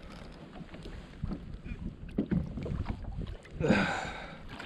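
Water splashing and knocking around a plastic kayak while a hooked snapper is brought alongside, with scattered small knocks and one louder splash about three and a half seconds in.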